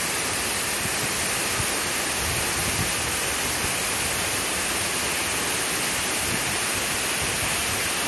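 Waterfall pouring down a steep rock face: a steady, even rush of water.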